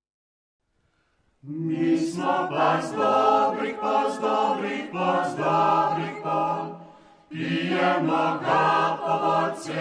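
Silence, then a choir singing from about a second and a half in, in two phrases with a short break near seven seconds.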